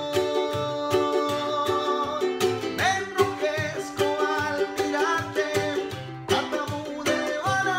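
Acoustic guitar and ukulele strummed together in a steady rhythm, with a man singing over them.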